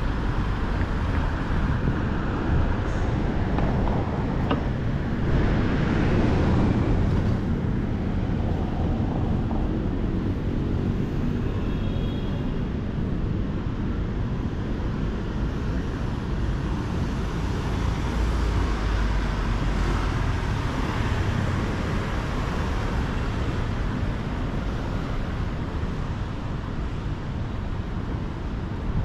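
Steady city street traffic: cars and other vehicles running along a busy avenue. A louder vehicle passes about six seconds in.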